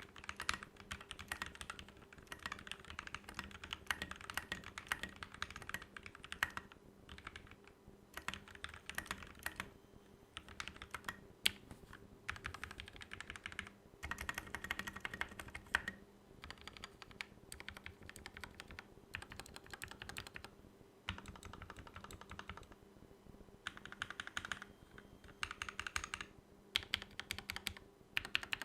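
Mechanical keyboard with Gateron Black KS-3 linear switches, lubed with Krytox 205g0 and fitted with Tai Hao keycaps, being typed on in quick runs of keystrokes with short pauses between them.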